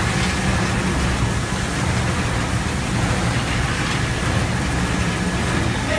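Carpet washing machine running: a steady machine drone with a low hum under an even wash of noise.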